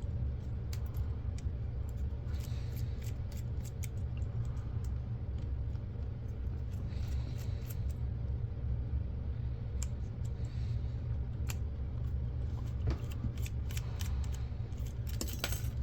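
Scattered light clicks and taps of small plastic and metal camcorder parts and a small screwdriver being handled during disassembly, with a quick run of clicks near the end, over a steady low hum.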